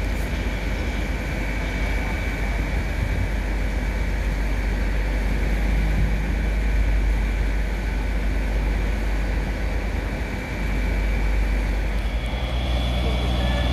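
Diesel train engine running steadily with a deep rumble and a steady high whine; about twelve seconds in a second, different engine note joins.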